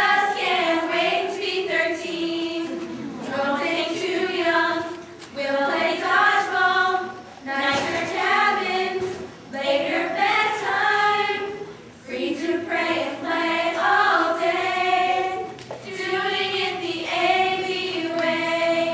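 A group of teenage girls singing a song together a cappella, in phrases a few seconds long with short breaks between them.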